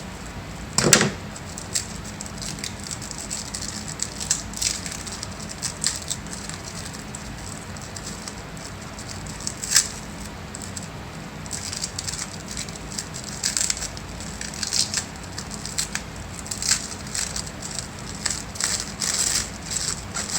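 Packaging around plant cuttings being handled, crinkling and crackling in short irregular bursts. A single louder, fuller bump comes about a second in.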